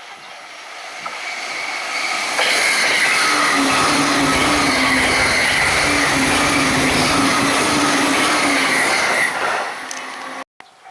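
An electric train on the Joban Line passing a level crossing at high speed. It builds up over the first couple of seconds, then a loud, even rush of wheels on rail lasts about seven seconds, then it falls away quickly.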